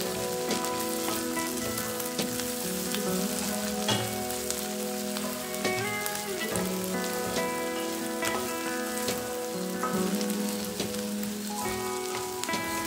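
Okra, onion and chilli stir-fry sizzling in oil in an iron kadai, with frequent small crackles and spatula scrapes as it is stirred. Background music with held notes plays under it.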